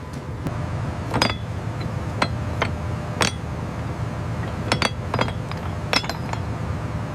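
A series of sharp, ringing clinks and knocks of hard objects at irregular intervals, over a steady low rumble.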